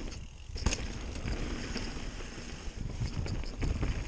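Mountain bike riding fast down a dirt trail: wind buffeting the camera's microphone over tyre rumble and the rattle of the bike. A brief lull just after the start is followed by a sharp knock under a second in.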